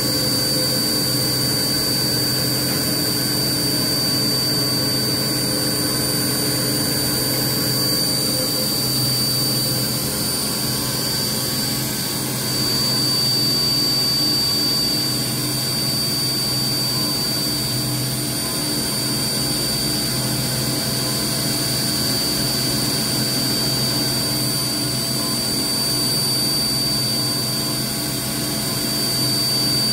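Four-axis CNC milling machine at work, its spindle turning a small end mill that cuts a pattern into a metal roller under flood coolant. A steady high whine over a constant hum.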